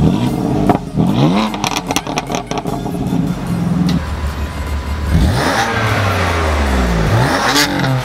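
BMW M4 Competition's twin-turbo inline-six, fitted with aftermarket downpipes, revved while standing still: short blips with a burst of sharp crackles and pops about two seconds in, then two harder revs that rise and fall away.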